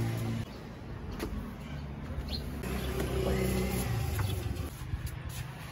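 A motor running steadily with a low hum that stops a little before the end, with a few light clicks.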